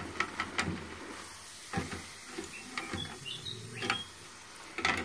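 Chips deep-frying in a pot of hot oil, sizzling steadily, with metallic clinks and rattles of the wire fry basket against the stainless pot as the basket is lifted out of the oil to drain.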